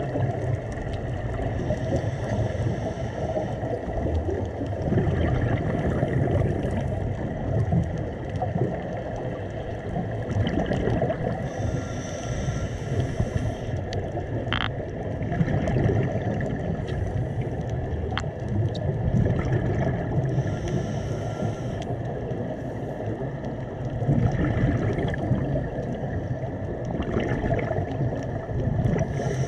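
Scuba diver breathing through a regulator underwater: exhaled bubbles rumble and gurgle, and a hiss of inhalation comes back every several seconds. One sharp click about halfway.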